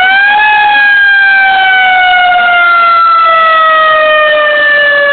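Fire engine siren sounding a wail: the pitch peaks about half a second in, then falls slowly and steadily.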